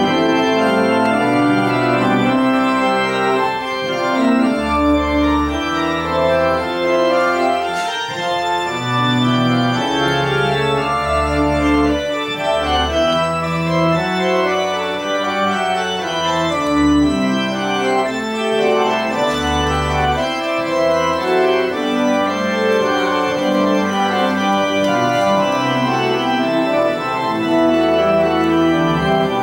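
Church organ playing, several lines of sustained notes moving together over low pedal notes that change every second or so.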